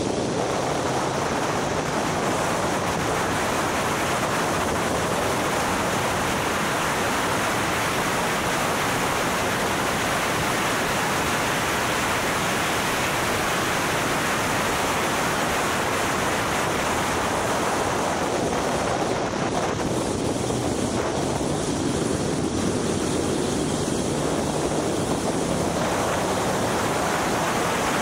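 Steady rush of wind and road noise buffeting the microphone of a car driven at speed on track, with the engine faint underneath.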